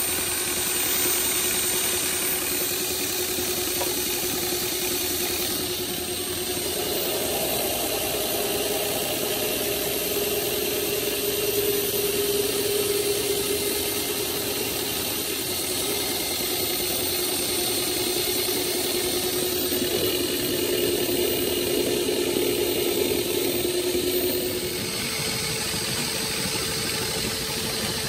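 Drum sander running steadily: a motor hum over a broad sanding noise. The hum changes pitch a little about a quarter of the way in and again near the end.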